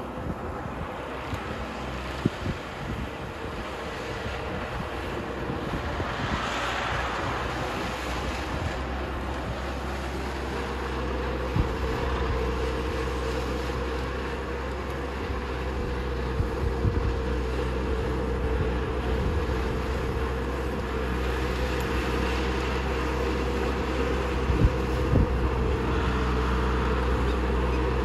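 A motor-driven machine running steadily, its whine rising a little about ten seconds in, with scattered knocks.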